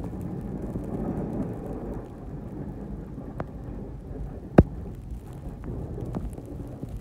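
Snow plow truck driving with its front blade pushing snow, heard from the cab: a steady low rumble of engine and blade on the pavement. A sharp knock comes about four and a half seconds in, with a couple of fainter clicks around it.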